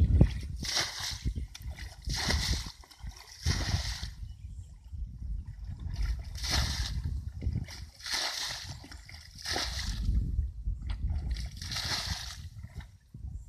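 Muddy water being scooped up in a plastic basin and poured out, in repeated splashing pours about every one to two seconds, as a shallow puddle is bailed out.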